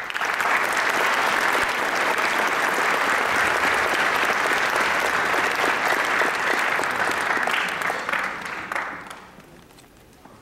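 Audience applauding, starting suddenly and holding steady, then dying away about nine seconds in.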